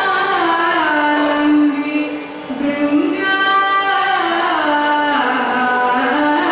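Kathakali vocal music: a singer holding long notes that slide from pitch to pitch, with a short break in the line about a third of the way in.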